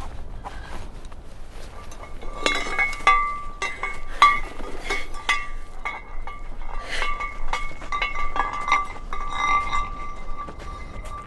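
Metal gear on a jostled backpack clinking and ringing, the same bright ringing note struck again and again at an uneven pace. Quieter rustling comes first, and the clinking starts about two and a half seconds in.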